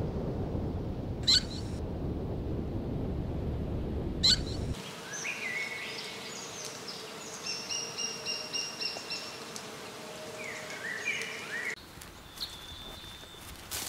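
A low outdoor rushing noise with two sharp clicks. About five seconds in, it gives way to songbirds chirping: varied short high notes and glides, with a quick run of repeated notes.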